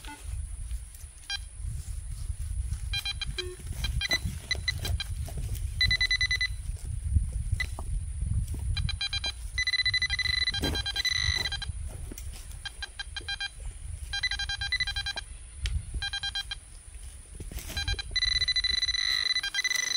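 Metal detector target signal: runs of rapid electronic beeps and short held tones that come and go as the spot is searched, over a low rumble.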